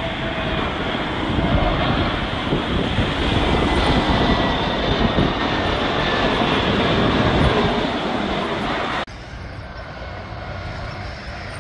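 Airbus A320neo jet engines on final approach, heard low and close as a loud, steady rumble with a faint whine. About nine seconds in the sound cuts off abruptly to the quieter engine noise of an Airbus A320 approaching further off.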